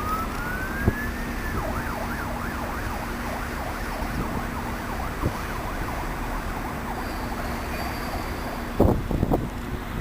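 An emergency vehicle siren: a long rising wail that switches to a fast up-and-down yelp for a few seconds, then fades, over steady background noise. A few knocks come near the end.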